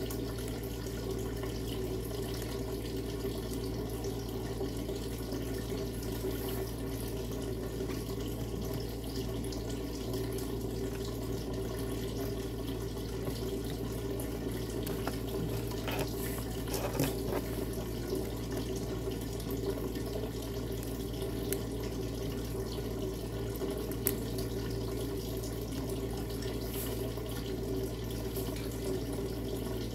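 Steady background noise with a low hum, and a few light plastic clicks around the middle as a small Bluetooth headset and its ear hook are handled.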